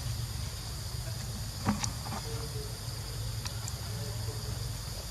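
Insects chirring steadily in a high, even band over a low constant hum, with a few scattered short clicks, the loudest about a third of the way in.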